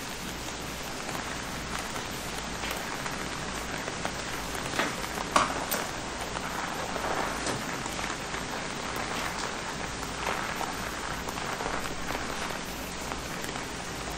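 Gas torch flame hissing steadily while it melts lead body solder out of a seam in car sheet metal, with scattered crackles and two sharper pops about five seconds in.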